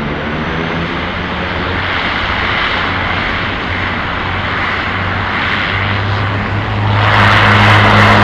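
Bombardier Dash 8 Q400's twin turboprops and six-bladed propellers running with a steady low drone as the airliner moves along the runway for departure. About seven seconds in the sound gets suddenly louder and harsher as power comes up for the take-off.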